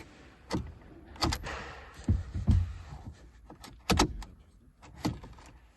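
A string of sharp clicks and knocks with a few dull thumps, about six in all and unevenly spaced, as car interior fittings are handled.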